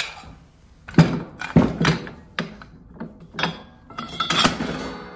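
Heavy slide hammer slamming down again and again onto a wooden block on a steel 42-inch mower deck, about seven sharp thuds with short metallic ringing. This is the deck being hammered back down where a blade strike bent it up, the cause of an uneven cut.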